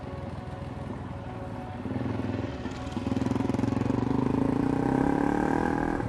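Suzuki DR-Z400 single-cylinder four-stroke dirt bike engine running as the bike rides up toward and past, growing steadily louder from about two seconds in and loudest in the second half.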